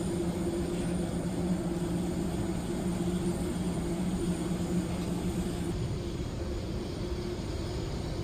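Steady running noise of a moving vehicle: an even rush with a constant low two-tone hum, the lower tone dropping out about six seconds in.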